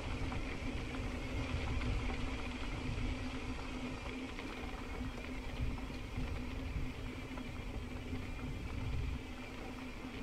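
Wind buffeting the microphone with a fluctuating low rumble while a mountain bike rolls along a dirt trail, with rattling and clicking and a steady low hum. The rumble eases off near the end.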